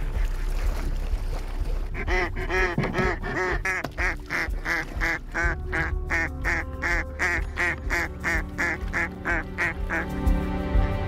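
A live hen mallard call duck quacking a long run of about twenty quacks, two to three a second. It is a live decoy calling to draw wild ducks in. Background music plays underneath and grows louder near the end.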